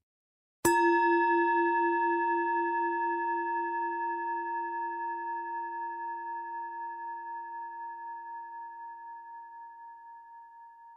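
A singing bowl struck once, just under a second in, then ringing with several steady tones that waver in a slow beat and fade gradually.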